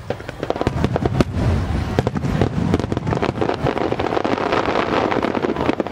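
Starmine fireworks: a rapid volley of aerial shells bursting, with dense booms and crackling in quick succession that breaks off suddenly at the end.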